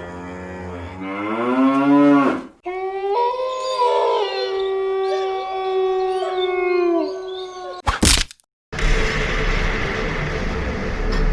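A run of separate sound effects. First a drawn-out call that rises in pitch for about two seconds, then a long, steady, higher call of about four seconds, then a sharp click and a short gap, and finally a steady rumbling noise.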